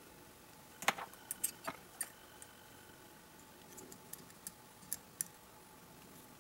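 Small metal parts of a Colt Single Action Army revolver clicking and tapping as they are handled and fitted during reassembly: a dozen or so light, scattered clicks, the sharpest about a second in.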